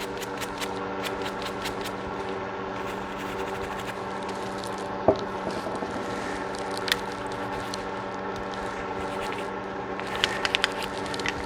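Light clicks and scrapes from a gun being handled during cleaning, with a sharper click about five seconds in, another near seven seconds, and a quick run of clicks near the end, over a steady background hum.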